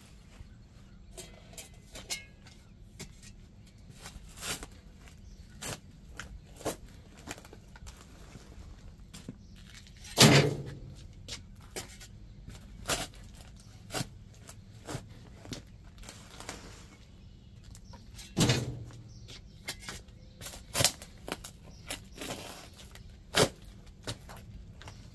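Steel shovel digging into packed soil: scattered scrapes and crunches of the blade in the dirt, with two heavier thuds, the first about ten seconds in and the second about eight seconds later.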